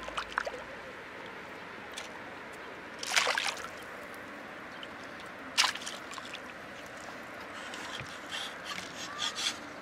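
Hooked fish splashing at the surface beside the boat, with water sloshing: a loud splash about three seconds in, another just before six seconds, and smaller splashes near the end.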